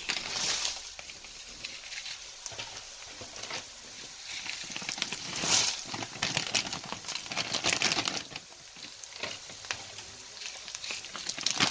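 Dried red chillies sizzling and crackling as they hit hot oil with browned garlic and ginger in a kadhai. The sizzle swells in a few louder surges, about half a second in, around the middle and again a couple of seconds later.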